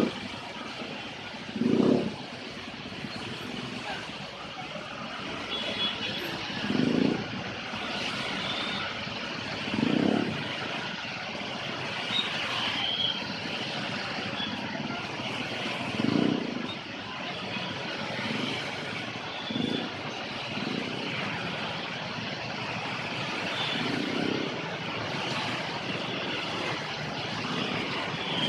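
Heavy road-works machinery running steadily, with a short, low, louder swell every few seconds.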